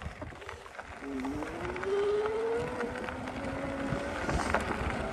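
GZR Pedelec fat-e electric bike's motor whining, rising in pitch from about a second in as the bike picks up speed under assistance and then holding a steady tone. Underneath is rolling tyre noise with small ticks from the gravel road.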